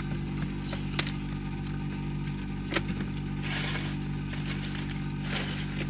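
Steady low hum of the camper van's engine idling, with two sharp clicks of the phone being handled, about a second in and again near three seconds.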